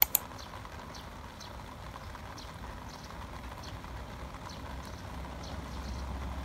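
Rain falling into a shallow puddle on bare dirt: a steady hiss with scattered faint drop ticks over a low rumble that grows toward the end. Two sharp clicks right at the start are the loudest sounds.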